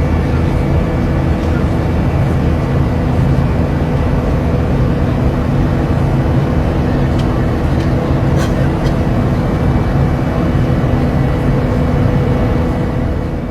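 Steady cabin noise inside a jet airliner: a constant deep rush of engines and airflow with a few steady hum tones. It fades out at the very end.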